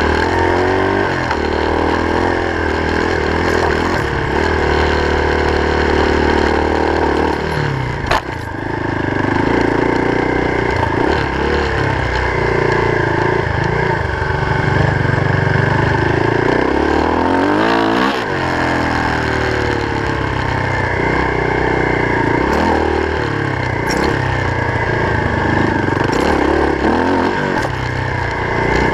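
Off-road vehicle engine running hard over a bumpy dirt trail, heard from on board, its revs rising and falling again and again. There is a sharp knock about eight seconds in.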